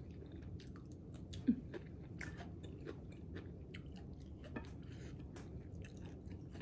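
A person chewing food close to the microphone: soft, irregular mouth clicks and small crunches.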